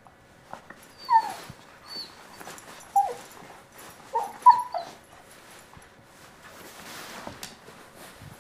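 Dog whimpering: a string of about six short, high whines that fall in pitch, as she noses into a bean bag trying to bury a bone. Soft rustling of the bean bag's fabric follows near the end.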